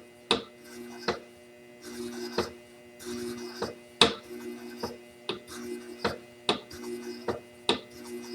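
Xzacta Shears flat hone machine running with a steady hum while a beveled scissor blade is passed again and again across its leather honing pad, rubbing between passes. A sharp click marks each pass, about a dozen of them at an uneven, fairly quick rhythm.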